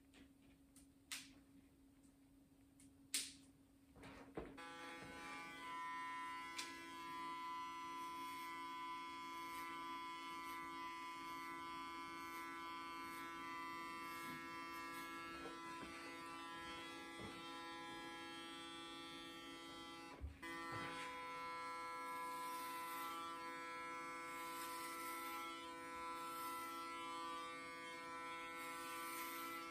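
A few clicks, then electric hair clippers switch on about four seconds in and buzz steadily as they cut short hair close to the scalp. About twenty seconds in there is a brief break with a click.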